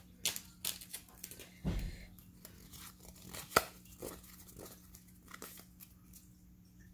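Pokémon trading cards being handled and shuffled in the hand: a series of short papery crinkles and clicks, busiest in the first couple of seconds, with one sharp click about three and a half seconds in.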